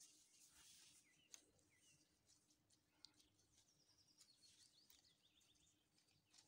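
Near silence: faint room tone with a few soft clicks and a short run of faint high chirps.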